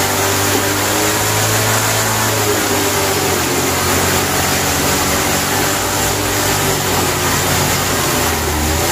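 An engine running steadily and loudly, its low note changing a few times.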